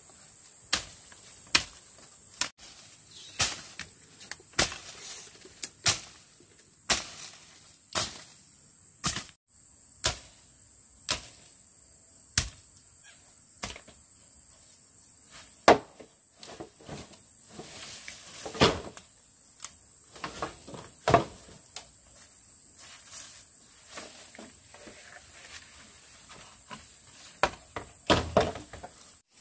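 Machete blows chopping through brush and saplings, about one a second at first, then more spaced out, over a steady high insect drone.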